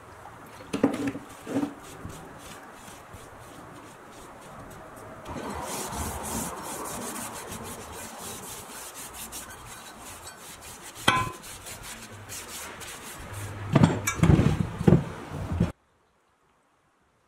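Metal drill press castings being wiped with a rag and handled on a wooden workbench: rubbing, with several knocks as the parts are moved and set down. The loudest knocks come in a cluster near the end, then the sound cuts off abruptly.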